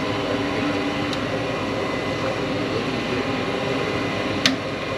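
Nordyne gas furnace running with a steady whir of its blower. There is a faint click about a second in and a sharper click near the end.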